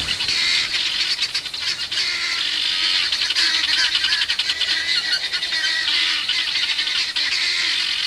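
Flock of guinea fowl giving harsh, rapid, overlapping alarm cackles without a break: birds alarmed by a predator.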